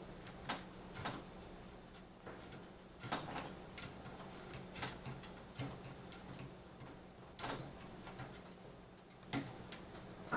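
Light plastic and metal clicks and taps from computer parts being handled and fitted, a dozen or so at irregular intervals, over a faint steady hum.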